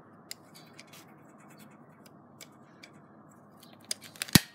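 Faint scratchy handling of a Blythe doll's hard plastic head and hair, with a few small clicks, then one sharp click near the end. The click comes as the eye-chip mechanism, stuck and being turned by hand, moves to the next set of eye chips.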